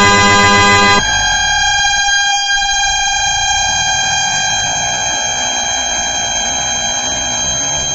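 Osun car horn blaring continuously during a long-duration honking test, a steady chord of several tones. About a second in, the sound changes abruptly to a slightly quieter, different-sounding blare. It then holds steady, its pitch sagging slightly.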